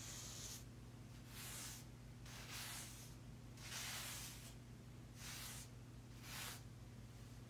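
A large feather swept back and forth through the air, giving about six soft, airy swishes, over a faint steady low hum.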